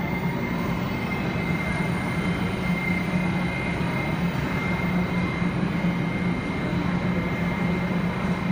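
R68 subway car standing at the platform with its doors open, humming steadily. A thin high whine rides over the hum and fades out about halfway through.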